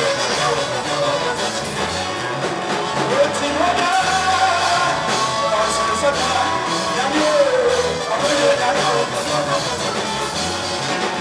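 Live band music with singing: several singers on microphones over electric guitar and drums, with a steady beat.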